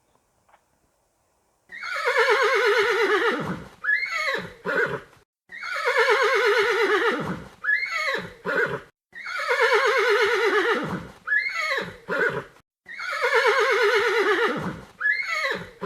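Horse neighing: four whinnies in a row, each a long quavering call that falls in pitch and ends in two short snorted notes.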